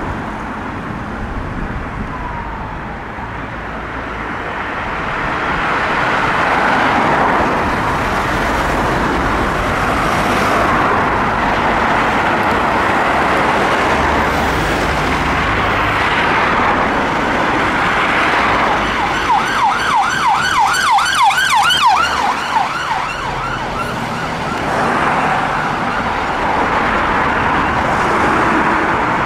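Sirens of a fire-service Mini Cooper response car and a following ambulance car working through traffic: a slow wail, switching to a fast yelp for a few seconds about two-thirds of the way through, then back to the wail, over the noise of road traffic.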